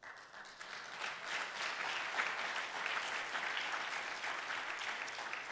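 A congregation applauding: a dense clatter of many hands clapping that starts abruptly, builds over about two seconds and tapers off near the end.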